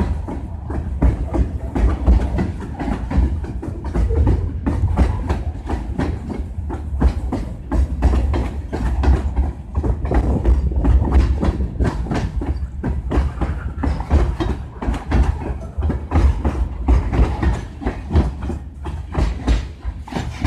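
Train wheels rolling past, clicking over the rail joints in quick irregular clacks over a steady low rumble.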